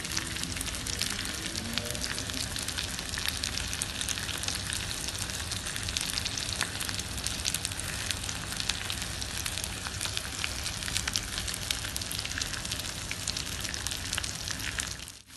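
Whole masala-coated fish shallow-frying in oil on a dosa griddle: a steady sizzle thick with small crackling spatters. The sound drops out for a moment near the end.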